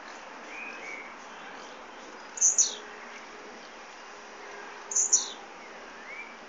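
Blue-black grassquit (tiziu) singing its short, high song phrase twice, about two and a half seconds apart, each ending in a falling note. Faint chirps of other birds sound under a steady background hiss.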